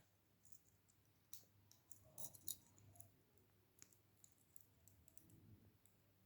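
Faint, scattered clicks of a folding multi-tool being handled, with a small cluster of clicks about two seconds in.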